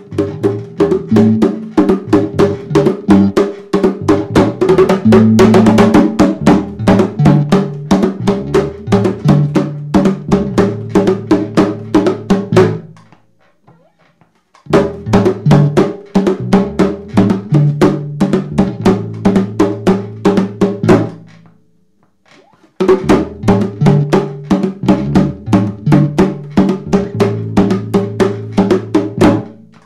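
Bongos played with the hands in a fast, busy rhythm over a repeating electric bass line. The groove stops dead twice, about 13 s and 22 s in, leaving a second or two of empty space before it starts again.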